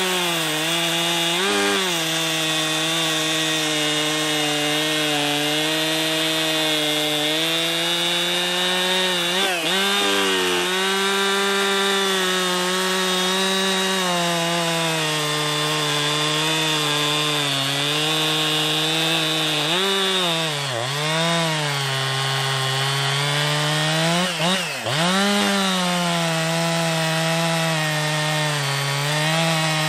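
Ported Jonsered 2071/2072 two-stroke chainsaw running at high revs while cutting wood, its note holding steady. Three times, once about a third of the way in and twice near the end, the pitch sags briefly under load and climbs back.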